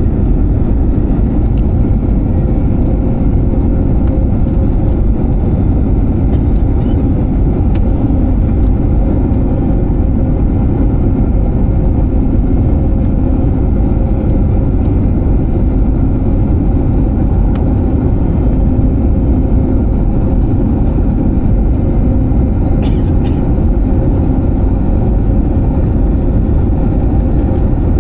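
Steady low rumble of an airliner heard from inside the passenger cabin: engine and airflow noise holding level throughout, with a faint steady hum and a couple of faint clicks about 23 seconds in.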